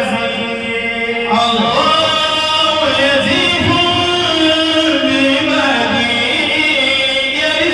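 A man chanting an Islamic devotional recitation into a microphone, in long held notes that bend slowly in pitch.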